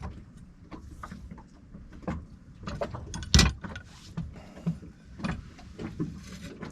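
Scattered metallic clicks and knocks of tools and small parts being handled during work on a sailboat's steering pedestal, with one louder knock about three and a half seconds in.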